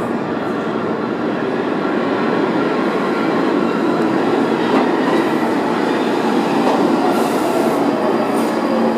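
R46 subway train running on the rails past the platform, a steady loud rumble of wheels and cars that grows slightly louder, with a tone falling in pitch over the last two seconds.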